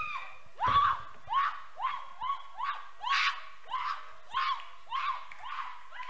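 A woman crying out over and over in short, high-pitched shrieks, about two a second.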